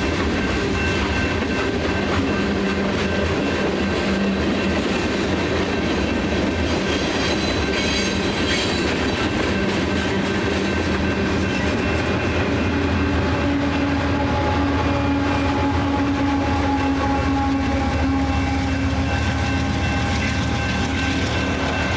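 Freight train rolling through a grade crossing, wheels clicking and rumbling over the rails. About six seconds in, the rear distributed-power locomotive, a GE AC4400CW diesel, passes with a brighter burst of engine and wheel noise, and then the train's sound tails off.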